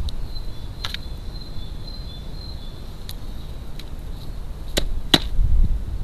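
A crow's beak striking the feeder tray as it pecks up mealworms: a handful of sharp taps, spaced irregularly, the two loudest close together near the end.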